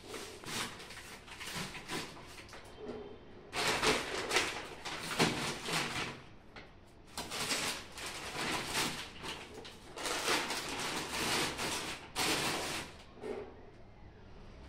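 Plastic grocery bags and packets rustling and crinkling as they are handled, in several bursts a second or two long.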